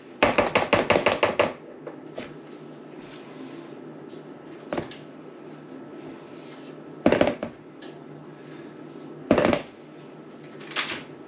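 Scoop and spatula scraping and knocking against a mixing bowl while portioning thick brownie batter: a quick run of about ten rapid strokes at the start, then three single knocks a couple of seconds apart.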